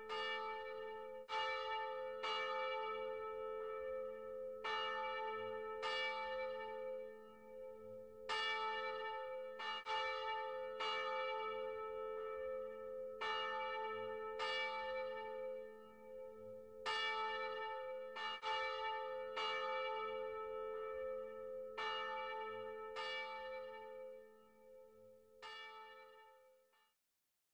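Church bells ringing, a stroke about once a second with the bells' low hum carrying on between strokes; the ringing fades and stops near the end.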